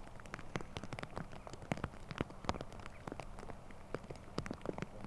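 Rain falling, with many irregular drop impacts clicking on a nearby surface.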